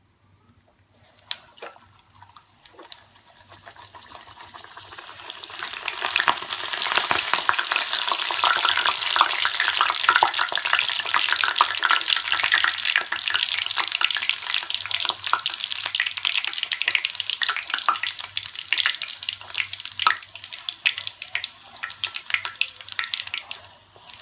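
Beetroot poori deep-frying in hot oil in a kadai: a crackling sizzle that builds over the first few seconds after the dough goes in, stays loud as it puffs, and thins out near the end.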